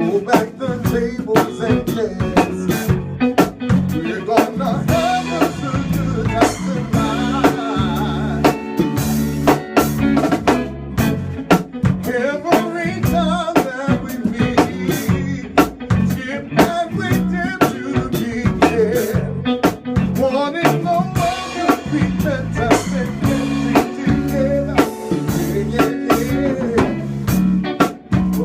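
A band playing a full-kit groove: drum kit with snare rimshots and bass drum keeping a steady beat under a bass line and melodic instruments.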